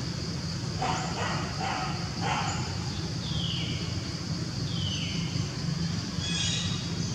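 Background animal calls: a few short barks in quick succession, then two falling whistled calls and a brief call near the end, over a steady high hiss and a low hum.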